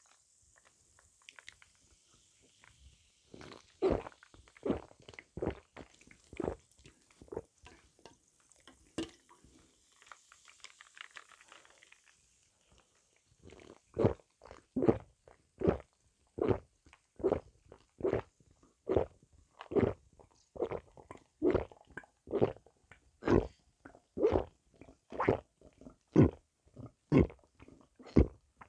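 Gulping swallows of iced Pepsi Zero mango cola drunk from a plastic cup, close to the mic. Softer, uneven gulps and a faint fizzing hiss come first. From about halfway through the gulps turn loud and steady, about one a second.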